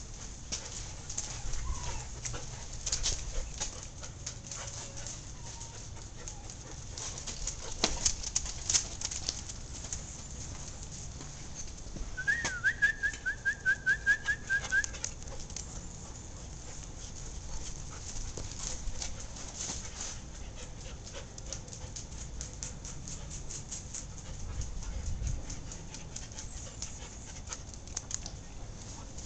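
Scattered light clicks and scuffs of dogs moving and playing on a concrete patio. About midway, a short bird trill of rapid repeated high notes lasts a couple of seconds.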